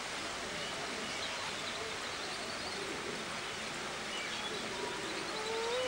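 Birds calling over a steady outdoor hiss: faint short chirps, then near the end a brief pitched call that glides up and falls away.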